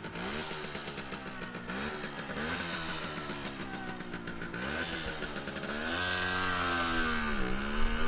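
Simson Sperber SR 4-3's 50 cc single-cylinder two-stroke M54 engine pulling away under load. Its pitch climbs in several steps, then holds higher near the end with a brief dip.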